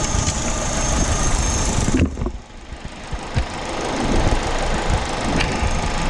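1.8-litre four-cylinder petrol engine of a Holden Astra idling under the open bonnet. About two seconds in, the sound drops off sharply and a thin high whine stops, then the engine sound builds back up over the next couple of seconds, with a few light clicks.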